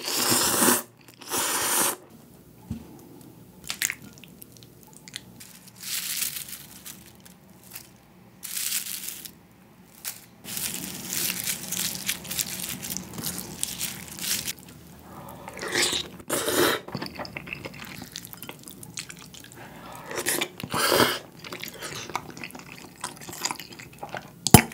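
Close-miked eating of budae-jjigae (Korean army stew): loud slurps of ramen noodles and soup, several times over, with chewing and wet mouth sounds between them.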